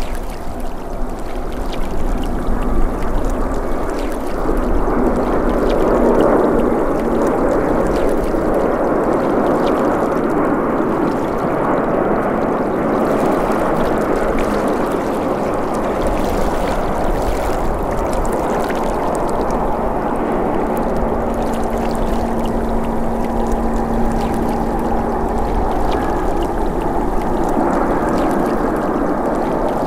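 Airbus A350-941 jet engines (Rolls-Royce Trent XWB turbofans), a loud, steady rushing noise. It builds over the first few seconds, then holds, with a faint low hum running through it.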